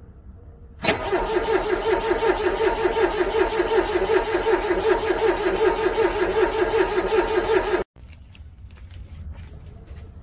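Car engine cranking on its starter in the cold, struggling to start: an even, rapid pulsing that starts suddenly about a second in, runs for about seven seconds without the engine catching, and cuts off suddenly.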